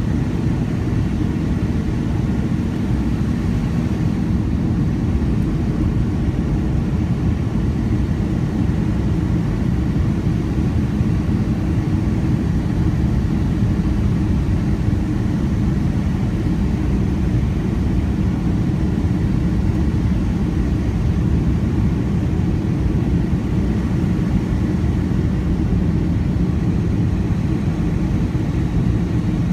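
Steady low rumble of a Boeing 757-200's engines and airflow, heard inside the passenger cabin at a window seat over the wing, as the jet descends on approach to land.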